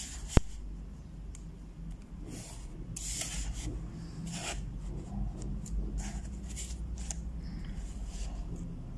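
Pencil scratching along a steel ruler on paper, and the ruler sliding over the sheet, in several short strokes. There is one sharp tap about half a second in.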